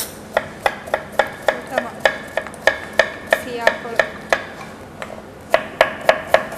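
Chef's knife chopping garlic on a plastic cutting board: a steady run of sharp knocks about three a second, a pause of about a second, then faster chopping near the end.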